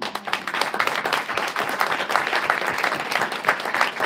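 Audience applauding, many people clapping at once, starting abruptly and holding steady.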